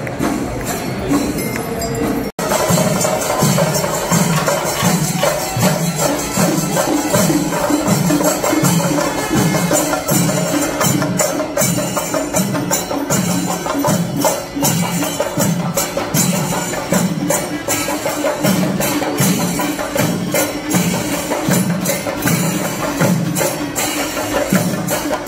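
Percussion music: a steady low drum beat under dense jingling and clacking, with a sudden brief dropout about two seconds in.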